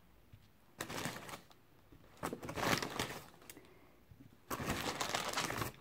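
A takeaway bag rustling as hash browns are pulled out and set down on a plate, in three bouts with short pauses between.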